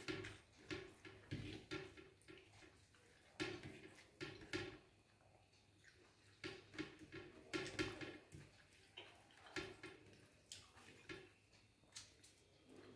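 Faint, irregular clicks and squelches of fingers mixing rice with curry on a ceramic plate, along with chewing, coming in short clusters every second or so.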